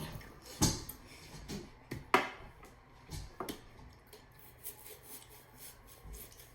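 Kitchen knife cutting the end off a watermelon, with a few sharp knocks, the loudest about two seconds in, and lighter scraping between them.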